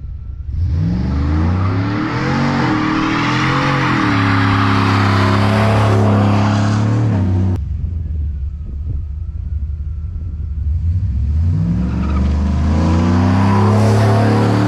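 GMC Sierra pickup engine through a 3-inch single catback exhaust, pulled at wide open throttle: the note climbs sharply about half a second in and holds high, cuts off abruptly about halfway through, then builds again in a second full-throttle pull near the end.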